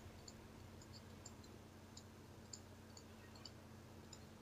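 Near silence: faint steady hum with small, irregular light clicks, a few a second, from a stylus tapping a pen tablet while handwriting.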